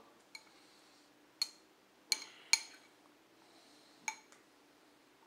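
A metal spoon clinking against a ceramic bowl as food is scooped up, five short ringing clinks, the two loudest close together a little over two seconds in.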